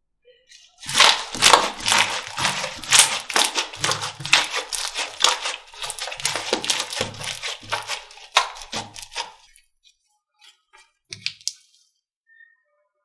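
Slime being squeezed and pressed by hand: a dense run of quick wet pops and clicks over soft low squelches for about eight seconds, then a few scattered clicks.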